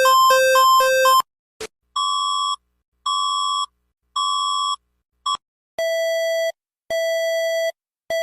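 Electronic emergency-alert alarm tones: a fast alternating high-low two-tone pattern that cuts off just over a second in, a short click, then three evenly spaced beeps at one pitch followed by three longer, lower beeps.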